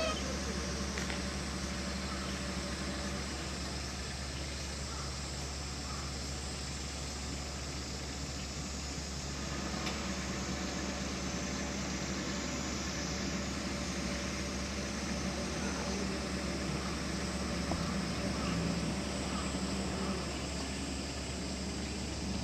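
Steady low mechanical hum of idling machinery, running unchanged throughout.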